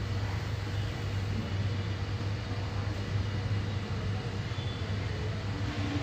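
Steady low hum over even background noise, the ambience of an airport.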